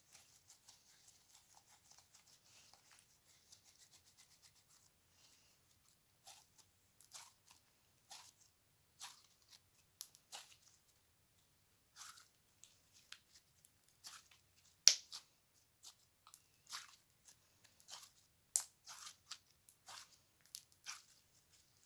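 Slime being pressed and stretched by hand: a soft scratchy rustle at first, then a run of sharp crackling pops and clicks, one or two a second.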